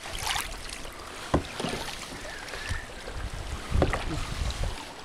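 Sea water splashing and sloshing right at the microphone as a kayak paddle blade strokes the water, in several uneven surges with the biggest splash near four seconds in. A sharp knock sounds about a second and a half in.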